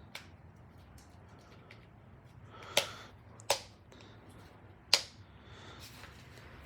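Sharp clicks and knocks of small tools and angle-grinder parts being handled during reassembly: three loud clicks about three, three and a half and five seconds in, with faint ticks between.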